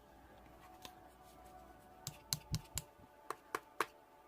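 A quick run of about seven sharp clicks starting about two seconds in, over a faint steady hum.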